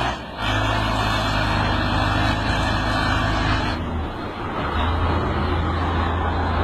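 Engine of a heavy vehicle or machine running steadily under loud mechanical noise, with an abrupt change in the sound about four seconds in.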